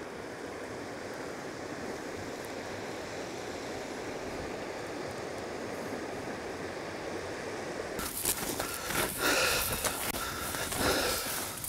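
A steady, even rushing noise outdoors. About eight seconds in it gives way to louder, uneven footsteps and rustling of boots and clothing through dry tussock grass as hunters climb a hillside.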